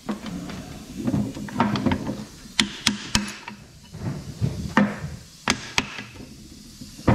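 A small hammer tapping on the four-bolt main bearing caps of a Ford Barra inline-six block to loosen them: a handful of sharp metal knocks at irregular spacing, with lighter clatter between them.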